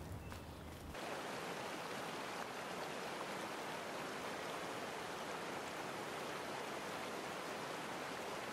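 Shallow stream rushing over a stony riffle, a steady, even rush of water that sets in about a second in.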